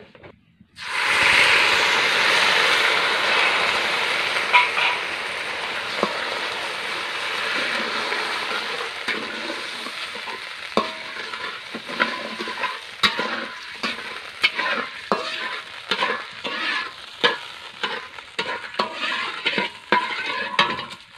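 Sugar syrup sizzling in a hot metal wok: the sizzle starts suddenly about a second in and eases over the following seconds. From about halfway on, a metal spatula scrapes and clinks against the wok roughly twice a second as hog plums are stirred through the syrup.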